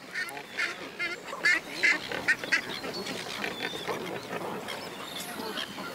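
Australian pelican chicks calling in the nest: a run of short, repeated squawks, clearest in the first couple of seconds, with more calls mixed in behind.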